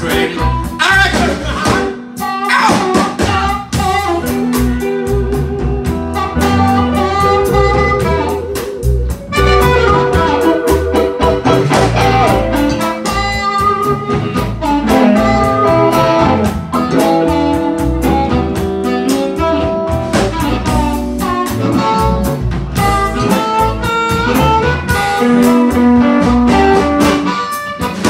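Live blues band playing: electric guitars, bass guitar and drum kit, with a harmonica played into a hand-held microphone carrying long held notes.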